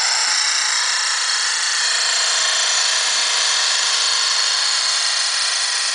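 Tornado spheres, two welded steel ball bearings, spinning at high speed on a glass makeup mirror: a steady high-pitched whir.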